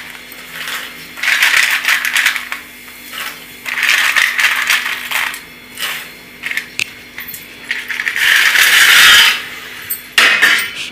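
Dry fusilli pasta tipped from a steel plate into a steel pot of boiling water, the hard pieces rattling and clinking against the metal. It comes in three pours, each a second or so long, with a few scattered clicks between them.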